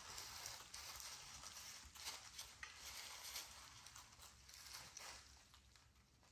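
Faint scuffling and soft pattering of three-week-old American Bully puppies moving about and tussling with each other, fading toward the end.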